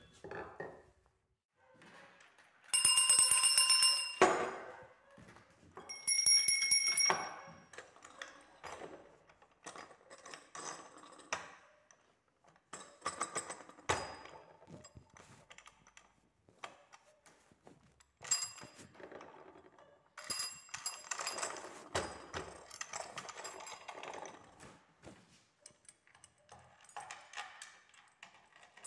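Small metal hand bells rung one after another. A loud ringing starts about three seconds in and lasts over a second, a second bell with a higher pitch rings about six seconds in, and quieter rings, clinks and handling knocks follow.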